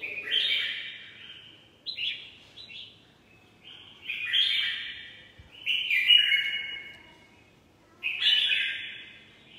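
Red-whiskered bulbul singing: about five short, bright warbling song phrases, each about a second long, with brief pauses between.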